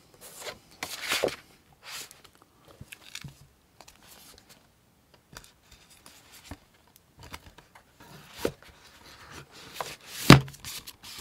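Hardcover books and their cardboard packaging being handled and stacked: rustling, sliding and scraping with small taps, and one sharp knock near the end as the books are set together.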